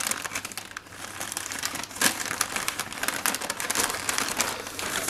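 Paper wrapping crinkling and rustling as hands unfold it, a dense run of small crackles with a sharper one about two seconds in.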